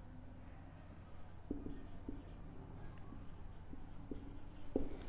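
Marker pen writing on a whiteboard: faint, irregular scratches and short squeaks of the felt tip as letters are written, beginning about a second and a half in.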